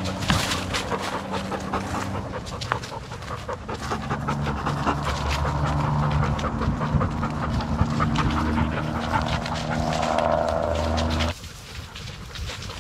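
A dog panting hard in quick rhythmic breaths as it runs, heard close up from a camera mounted on its back. A steady low drone runs underneath and stops suddenly near the end, where the sound gets quieter.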